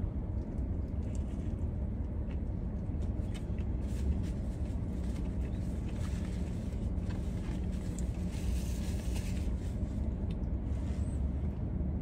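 Steady low rumble of a parked car idling, heard inside the cabin, with faint chewing ticks and a short rustle about eight to nine seconds in.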